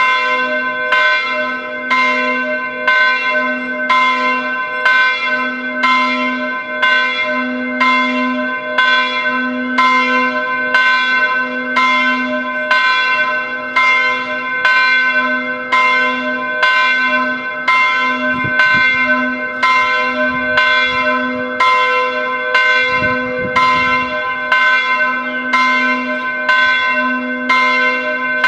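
Several church bells ringing together in a continuous peal, struck about once a second, their tones overlapping and hanging on. This is the church's daily 11 o'clock ringing.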